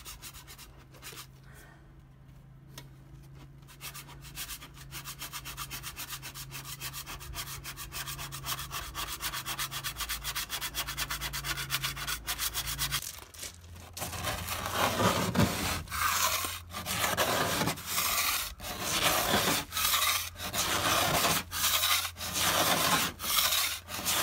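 Sandpaper rubbed by hand over antifouling paint on a boat's hull. First come quick, short strokes that grow louder. About halfway through they change to louder, longer back-and-forth strokes, roughly three every two seconds.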